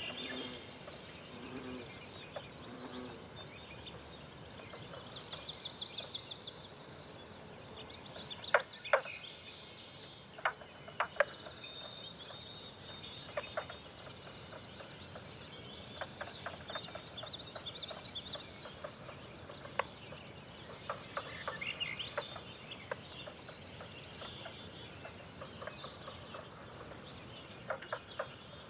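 A forest dawn chorus of several birds chirping and calling over a soft natural background. A rapid high trill comes about five seconds in, and sharp chips follow.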